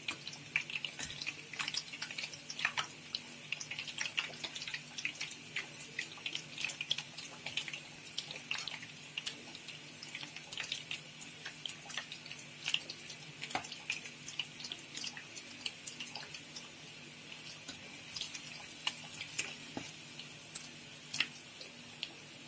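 Egg-dipped bread frying in hot oil in a pan: a steady crackle of small pops and sizzling.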